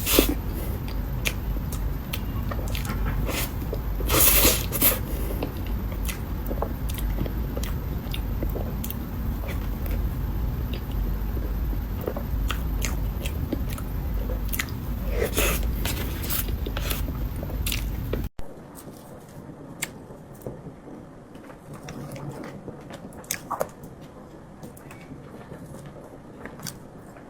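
Close-miked chewing and mouth sounds of eating soft matcha mille crepe cake, with many small wet clicks and smacks and a louder burst about four seconds in. About 18 seconds in the sound cuts abruptly to a much quieter stretch with only scattered clicks.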